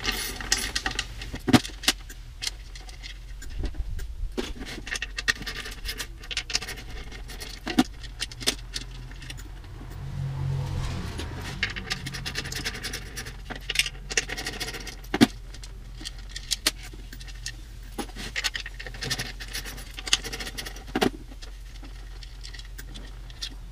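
Small metal drum hardware handled on a bench: scattered clicks and clinks of screws, lock washers and lug parts, with some light scraping.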